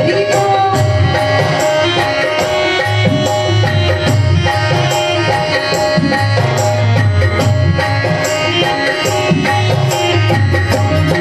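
Instrumental interlude of a live Rajasthani devotional bhajan: a held melody line over a steady, even hand-drum rhythm.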